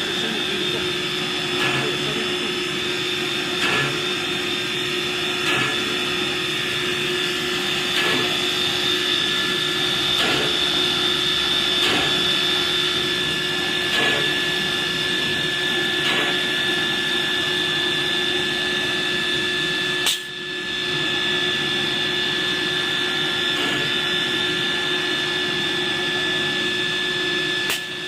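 Nesting CNC router running: a steady high spindle whine over steady machine noise, with a faint knock about every two seconds. The sound breaks off sharply for a moment about 20 seconds in.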